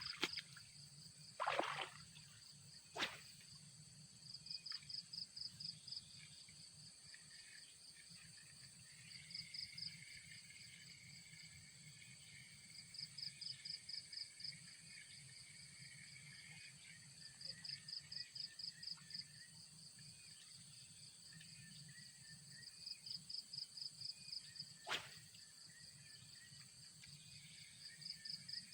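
Insects chirping outdoors in faint, high-pitched pulsed trills of a second or two that recur every few seconds over a steady high buzz. A few sharp short knocks come through, the loudest about three seconds before the end.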